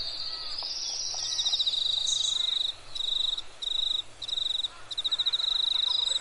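Insects trilling: a high, shrill buzz, steady at first, that from about a second and a half in breaks into repeated pulsing bouts with short gaps between them.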